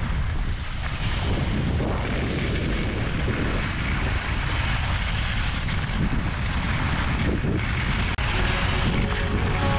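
Wind rushing over an action camera's microphone while skiing fast down a groomed piste: a steady deep rumble, with skis hissing and scraping on the snow.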